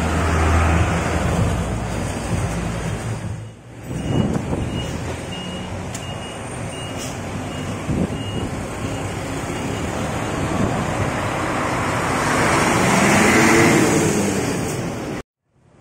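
Diesel buses and a truck passing on a street: a bus engine running as it pulls past, then traffic with a high beep repeating about twice a second for several seconds as a Volvo B11R coach goes by, and near the end a heavy truck passing close and loud before the sound cuts off suddenly.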